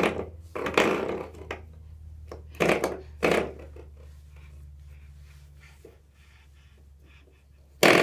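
Coiled-spring door stop flicked by a baby's hand, giving five sharp twangs: one at the start, one just under a second in, two close together around three seconds in, and one near the end. Each twang rings on briefly, over a low hum that slowly fades.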